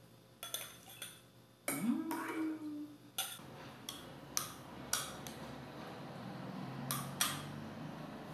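Metal spoon clinking against a glass jar and a stemmed glass as fruit salad is spooned out, a string of sharp clinks at irregular intervals.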